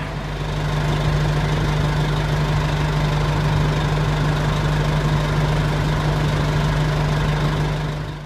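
Fire apparatus diesel engine running steadily with a constant low hum. It grows louder about a second in and fades out at the end.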